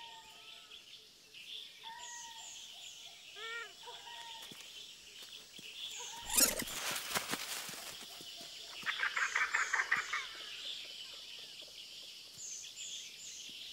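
Outdoor wildlife ambience: a steady high insect drone with repeated bird chirps over it, and a few short chirping calls in the first few seconds. About six seconds in comes a brief loud noisy burst, and near ten seconds a quick rattling run of calls.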